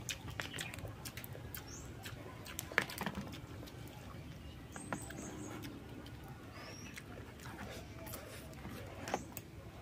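Cooked crab shell being cracked and pulled apart by hand, with scattered soft clicks and snaps, along with chewing and mouth sounds of eating.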